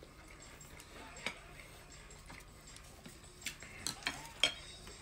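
A few light, sharp clicks and taps of tableware and a small packet being handled while eating, one about a second in and several close together near the end.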